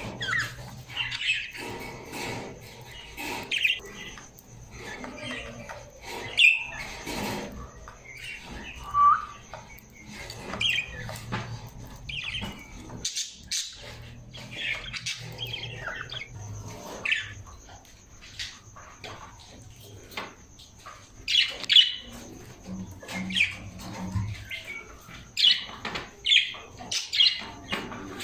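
Parrots squawking and chirping in short, irregular calls throughout.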